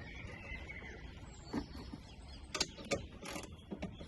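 A spanner working on the nuts of a car's strut brace at the top mount. It makes a handful of irregular sharp metal clicks and knocks, mostly in the second half.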